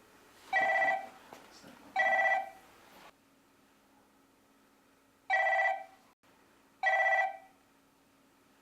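A phone ringing: four short electronic ring tones of about half a second each, in two pairs.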